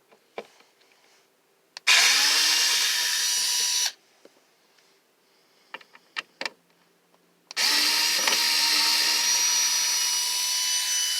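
Hyper Tough 4V Max lithium-ion cordless screwdriver driving a screw into oak. There is a short run of about two seconds, a few light clicks, then a longer run starting about halfway in. Each run starts with a rising whine that then holds steady.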